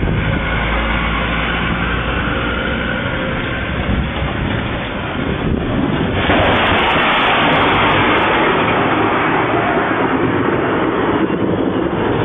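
Thunderstorm noise: a long, low rumble under a steady rushing hiss that gets louder about halfway through.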